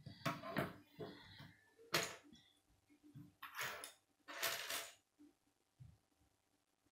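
Plastic K'nex pieces clattering and clicking as they are handled, with the assembled frame set down on a wooden table. There are several short clatters in the first five seconds, the sharpest about two seconds in, then only faint ticks of handling.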